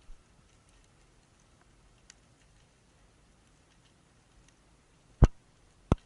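Faint, scattered ticking over a low hiss, broken by two loud, sharp clicks about two-thirds of a second apart near the end; likely the underwater sound of a spearfishing dive.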